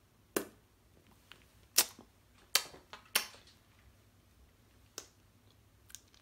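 Lips smacking together to spread freshly applied clear lip gloss: four sharp wet pops in the first few seconds, then two softer ones.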